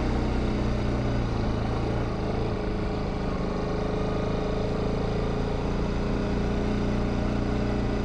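Bajaj Pulsar RS200 motorcycle's single-cylinder engine running steadily while riding, its pitch holding nearly even.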